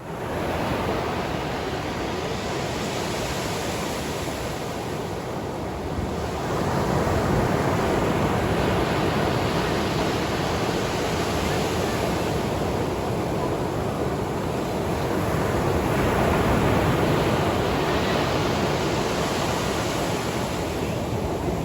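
Sea surf washing in steadily, slowly swelling and easing as the waves come in.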